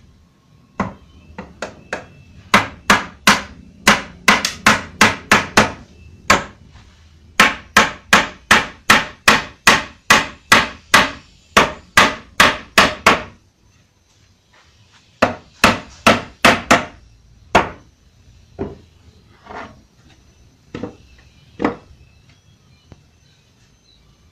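Hammer striking a wooden frame to knock its joints together: runs of quick, sharp blows about three a second, broken by two short pauses, then slower, lighter, scattered strikes toward the end.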